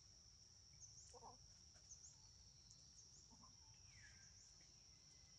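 Near silence: faint forest ambience, a steady high insect drone with a few faint short bird chirps over it.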